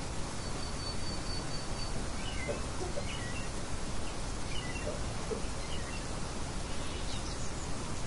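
Steady rain hiss with small birds chirping over it: a quick run of high repeated notes about half a second in, then scattered short chirps through the rest.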